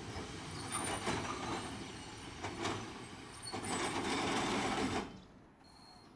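Tosaden streetcar running noise, a rattling rumble of wheels on rail and the car body, swelling a few times and then dropping away suddenly about five seconds in.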